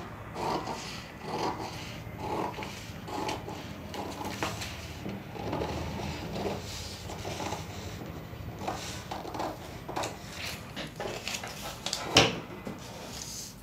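Scissors snipping through a sheet of paper pattern, a run of short cuts about two a second. A single sharp knock near the end is the loudest sound.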